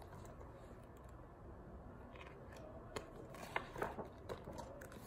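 Faint rustling and a few soft taps of a picture book's page being turned and the book handled, starting about three seconds in, over quiet room tone.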